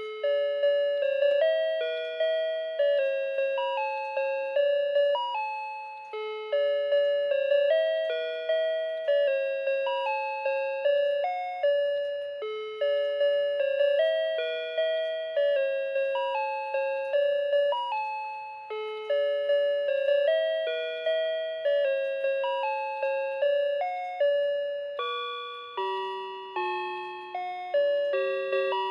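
Melody alarm clock ringing: a simple tune of bell-like electronic notes, each dying away, with the phrase repeating about every six seconds.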